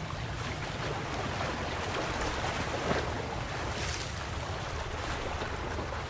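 Wind blowing across the microphone: a steady rushing noise with an uneven, buffeting low rumble.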